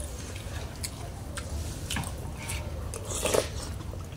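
People eating soupy bamboo-shoot curry with spoons: chewing and slurping with small scattered clicks, and one louder noise a little after three seconds in.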